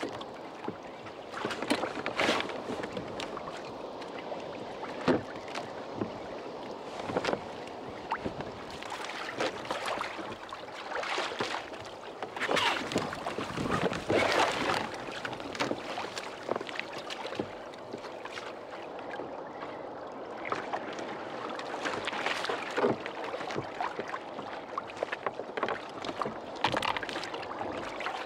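Choppy sea slapping and splashing against a Hobie Adventure Island kayak's hull in irregular bursts, over a steady rush of water.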